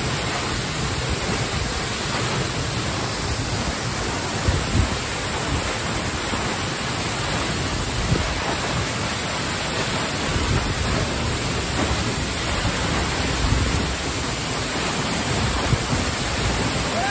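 Waterfall heard close up: a loud, steady rush of falling water, an even roar with no let-up.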